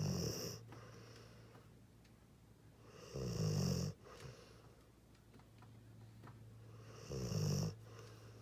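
Pitbull–mastiff mix dog snoring in his sleep: three loud snores, each under a second long, about every four seconds, over a steady low hum.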